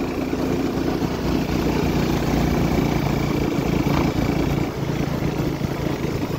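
Motorcycle engine running steadily while the bike is ridden along the road.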